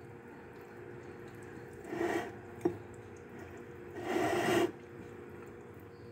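Spicy noodles being slurped in from chopsticks twice, a short slurp about two seconds in and a longer one about four seconds in, with a sharp click between them, over a steady low hum.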